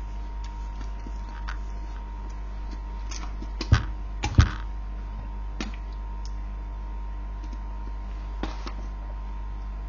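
Scattered light clicks and two sharper knocks about half a second apart midway, over a steady electrical hum.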